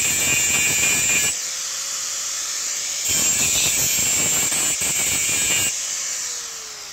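Electric angle grinder with an abrasive disc grinding on the metal of a truck cargo-box door in two loud bouts. Between the bouts the motor spins free at a steady pitch, and near the end it winds down with a falling pitch.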